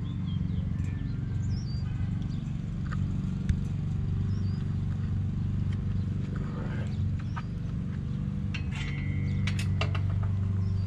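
A steady low machine hum, with a few bird chirps early on and several sharp metallic clinks of chain-link fencing near the end.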